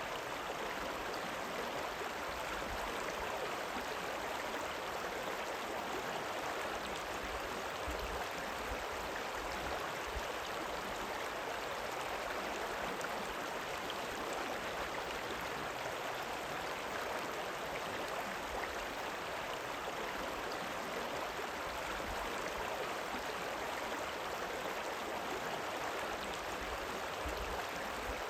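River water rippling over its bed: a steady, even rush of running water.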